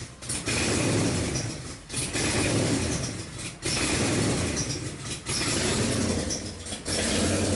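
2005 Chrysler 300C's 5.7-litre Hemi V8 idling with a surge: the running level swells and then drops off sharply about every second and a half to two seconds, hunting up and down. The owner is chasing it as an injector or vacuum-leak fault.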